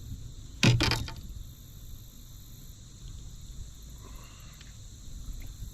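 Steady high-pitched insect trilling from the lakeside, with a brief loud burst of noise under a second in.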